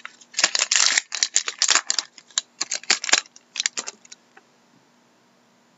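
A 2013-14 Upper Deck Artifacts hockey card pack wrapper being torn and peeled open by hand, with the cards then pulled out and handled: quick, irregular crinkling and rustling that stops about four seconds in.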